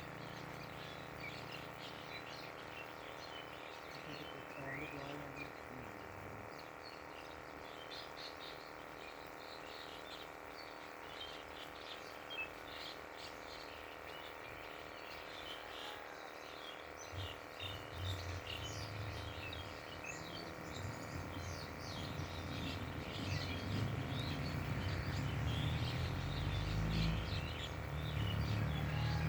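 Birds chirping in many short, quick calls. A low rumble comes in about two-thirds of the way through and grows louder toward the end.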